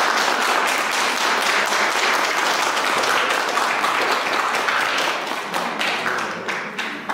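Audience applauding: dense, steady clapping that thins to scattered separate claps and dies away near the end.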